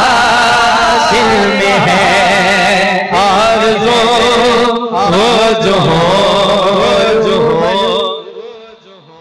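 Voices singing an Urdu naat, a devotional poem in praise of the Prophet, in a drawn-out, wavering melody. The singing stops about eight seconds in.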